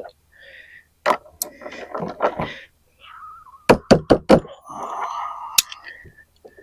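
Metal parts of a bench grinder assembly being handled and knocked. There are single sharp knocks about a second in, a quick run of about five knocks in the middle, one more later, and scraping and handling noise between them.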